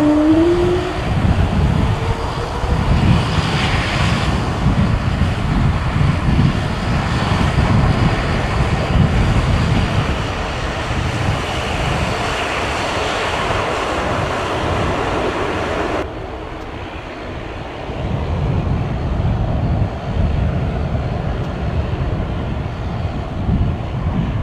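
Airbus A220-300's Pratt & Whitney PW1500G geared turbofans at takeoff power: a loud, continuous jet roar with a pulsing low rumble, a rising engine tone topping out right at the start. About two-thirds of the way in the hiss in the upper range drops away abruptly while the low rumble carries on.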